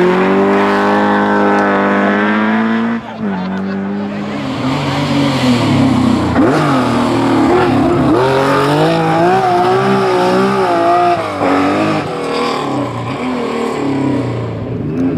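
Rally car engine at full throttle: the revs climb for about three seconds, drop sharply at a gear change, then rise and fall repeatedly as the car is driven hard.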